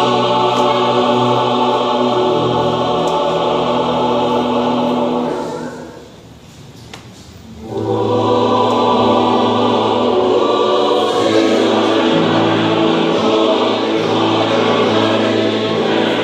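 Large mixed choir of men's and women's voices singing held chords. It breaks off for a pause of about two seconds in the middle, then comes back in.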